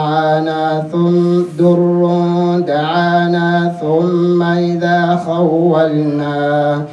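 A man's voice reciting the Quran in a melodic chant. He draws the words out into long held notes that glide up and down, with short breaths between phrases.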